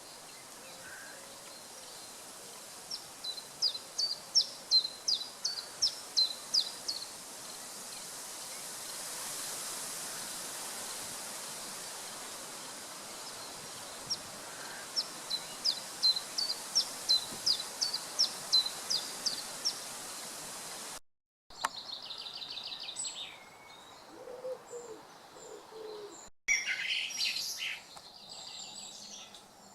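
A songbird sings two long phrases of sharp high notes repeated about three times a second, over the steady rush of a flowing beck. After a cut about two-thirds through, other birds call and chirp in varied short notes.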